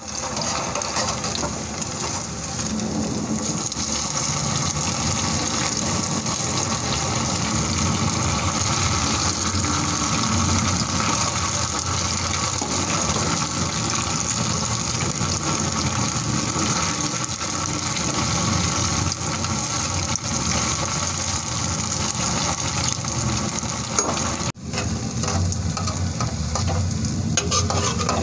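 Buttermilk-batter pua fritters deep-frying in hot oil in a kadhai: a steady sizzle, with a steel ladle stirring and turning them. The sound drops out for an instant about 25 seconds in.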